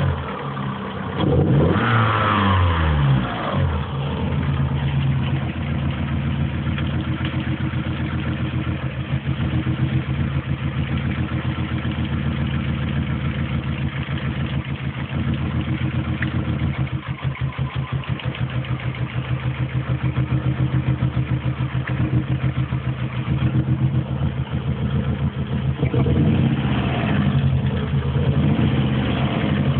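Opel Tigra's engine revved up and down briefly at the start, then idling steadily, with a few more revs near the end. The owner records this noise as a sign of an engine problem.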